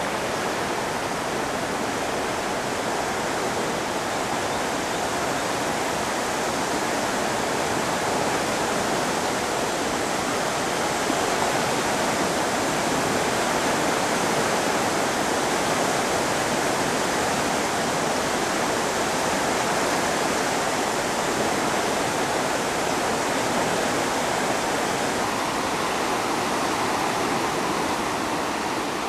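Fast-flowing floodwater of the Guadalupe River rushing and churning around half-submerged tree trunks: a steady, unbroken rush of water.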